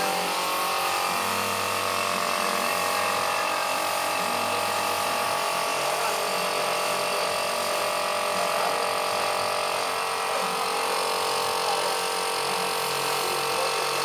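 Air-compressor-fed paint spray gun spraying paint: a steady motor hum with hissing air, unbroken at an even level.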